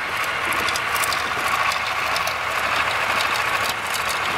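Farmall 460 diesel tractor engine idling steadily after a pull start, heard from outside the tractor.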